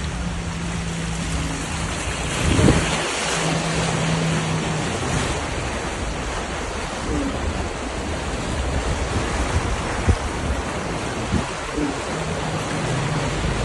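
Heavy rain pouring steadily, a dense even hiss. A low steady hum comes and goes underneath, and there are a couple of brief knocks.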